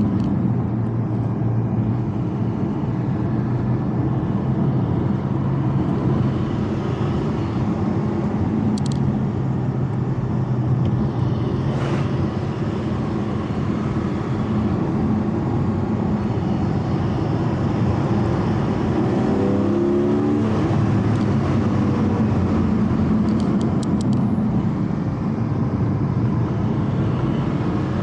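Porsche Cayman GT4's flat-six engine, heard from inside the cabin, cruising at steady, easy revs over tyre and road noise. About two-thirds of the way in the revs rise briefly.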